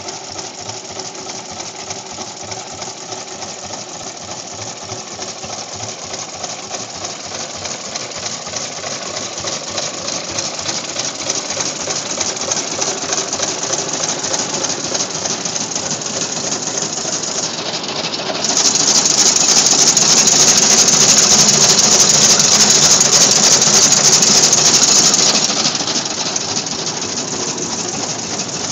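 Rumley OilPull tractor engine running steadily with a rapid mechanical clatter. It grows louder about 18 seconds in and eases back near 25 seconds.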